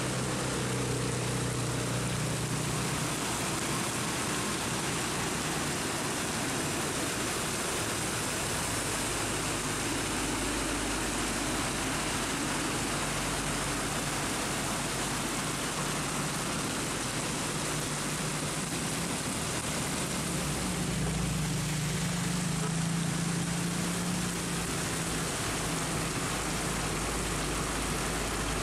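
Heavy rain pouring steadily while truck engines run as trucks drive through flood water on the road. One engine hum fades in the first few seconds, and another comes in about two-thirds through and is loudest a little later.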